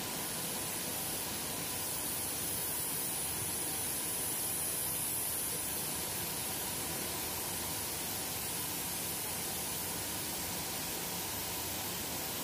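Steady hissing machinery noise from a running industrial biscuit production line, with a faint steady hum underneath.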